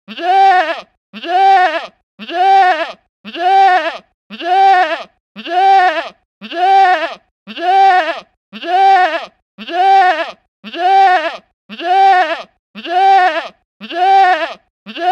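A goat bleating, the same call repeated about once a second, each bleat rising and then falling in pitch.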